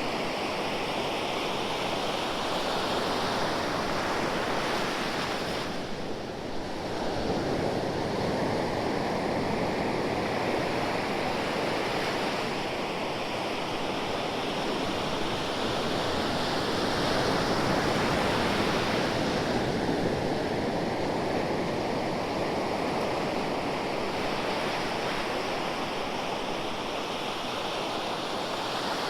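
Ocean surf: waves breaking and washing in as a continuous rush that swells and eases slowly, with a brief lull about six seconds in.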